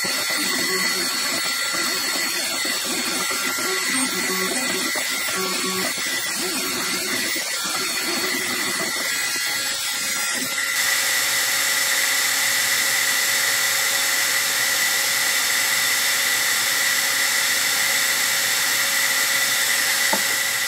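Stepper motors of a CNC 3018 desktop engraver running in short start-stop moves as they carry the laser head over the workpiece, over a steady hiss. About halfway through the motor sound stops and a louder, even hiss remains.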